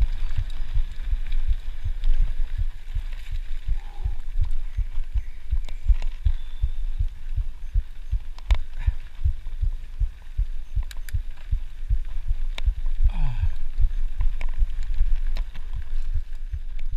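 Mountain bike jolting along a dirt trail, heard through a body-worn action camera as a dense, low thumping rumble, with sharp clicks and rattles from the bike now and then.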